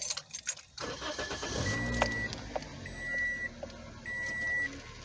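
A 2006 Toyota Corolla's four-cylinder engine starting and settling into a steady idle about two seconds in. Through it a short dashboard warning chime repeats about once a second.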